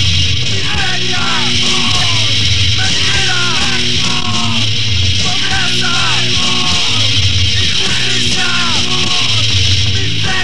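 Hardcore punk band playing at full volume, with yelled vocals in short phrases that fall in pitch, repeated over and over.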